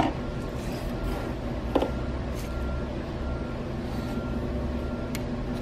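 Steady low mechanical hum, with a few faint clicks and rustles as the wires of a VW ALH TDI ECU harness plug are handled; one sharper click comes a little under two seconds in.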